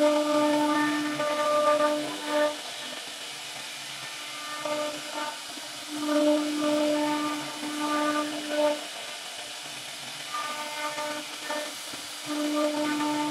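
CNC router spindle with a bit cutting into a wooden door panel: a steady whine over a hiss, louder in stretches of a few seconds and quieter between them.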